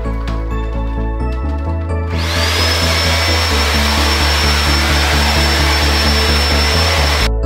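Electric carpet cleaner switched on about two seconds in: its motor spins up to a steady high whine over a loud rushing noise, then cuts off suddenly near the end. Background music with a steady bass line plays throughout.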